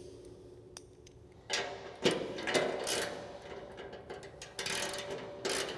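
Ratcheting wrench clicking as it tightens a 13 mm nut on the eye bolt of a snow plow trip spring. It comes in short bursts of clicks starting about a second and a half in.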